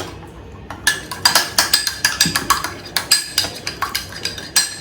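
Metal spoon beating cake batter fast in a mug, clinking rapidly against the mug's sides in a quick rhythm that starts about a second in.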